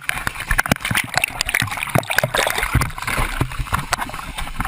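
Seawater sloshing and splashing inside the cabin of a small plane flooding after ditching in the ocean, with scattered knocks and clatter throughout.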